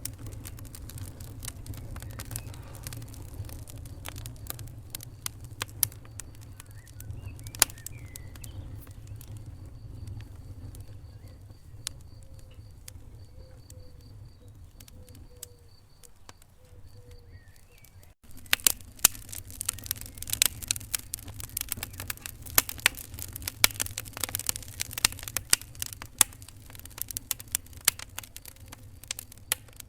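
Wood fire crackling and popping in a fireplace over a low rumble of flames. About eighteen seconds in the sound changes abruptly to denser, louder crackling.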